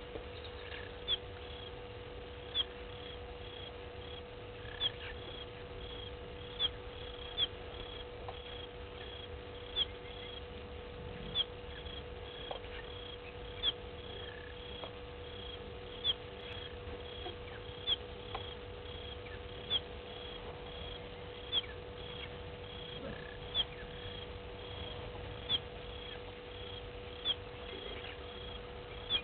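A small animal calling in an even rhythm: a short high note about twice a second, with a sharper chirp every second and a half or so, over a steady low hum.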